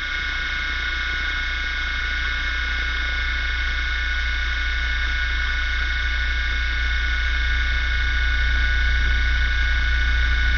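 Model helicopter running at steady speed, heard from a camera riding on its spinning rotor: a high, steady whine of several tones over a strong low hum, growing slightly louder.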